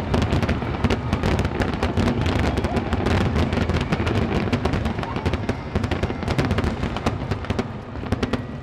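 Aerial fireworks display: a dense, continuous barrage of shell bursts, many bangs overlapping in quick succession, easing off near the end.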